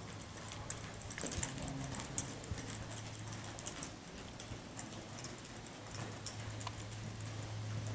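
Hoofbeats of a loping horse on soft arena dirt: irregular soft thuds and clicks. A steady low hum runs underneath and grows louder about six seconds in.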